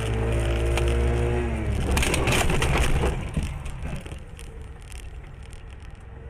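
A car engine revs and holds, then eases off. About two seconds in comes a loud, crunching collision noise lasting about a second, followed by scattered clicks and rattles at a lower level.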